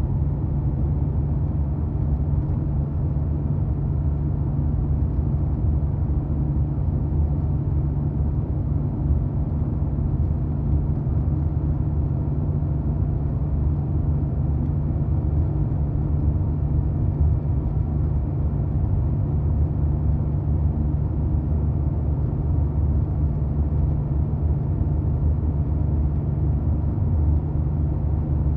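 1990 Porsche 911's air-cooled flat-six engine running at a steady, unchanging engine speed, with no revs or gear changes.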